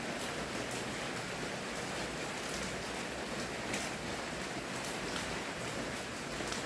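Steady rainfall making an even hiss, with faint individual drops pattering against a surface.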